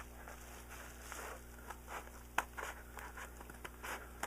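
A sealed package being cut open with scissors and handled: scattered scraping and rustling, with one sharp click about two and a half seconds in.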